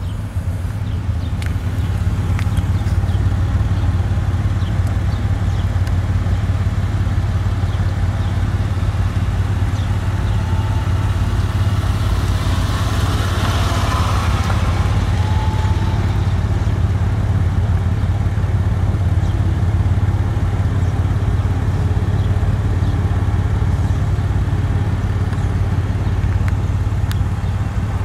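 2010 Lexus RX350's 3.5-litre V6 idling steadily, heard at the exhaust as a low, even hum; the exhaust hiss grows louder for a few seconds about halfway through.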